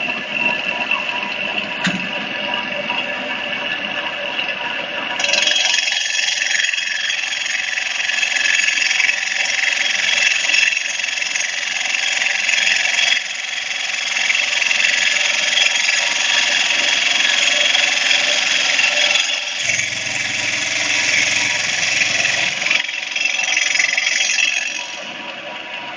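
Stone CNC saw's diamond blade cutting through a stone slab with water cooling: a loud, steady, high grinding hiss that grows louder about five seconds in. A lower hum joins for about three seconds near the end.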